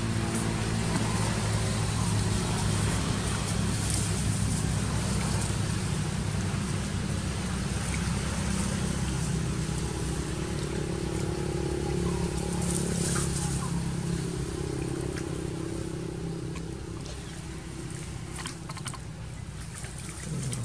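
A motor vehicle engine running steadily, a low hum that dies away over the last few seconds. Near the end there is light splashing of water in a metal basin.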